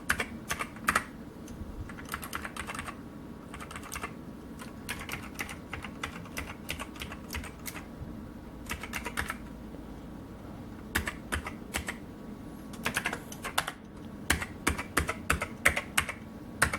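Rosewill RK-6000 mechanical keyboard being typed on in irregular bursts, its clicky switches (what look like blue Alps) going key after key with short pauses. The keys are being tried one by one to find which do not work: the I key's switch is bad.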